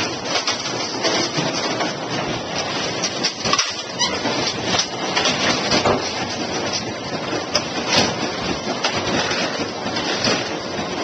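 AMF 82-70 automatic pinsetters running, a loud, steady mechanical clatter full of sharp clicks and knocks.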